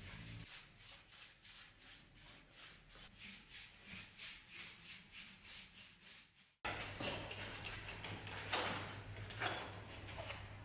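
Paintbrush dragging wood stain across a bare wooden tabletop: soft rubbing strokes in a quick, even rhythm. About two thirds through it changes to a louder, rougher brushing over a low steady hum.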